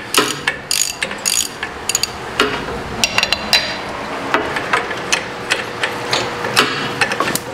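Hand socket ratchet clicking in repeated short strokes as a freshly loosened bolt is run out.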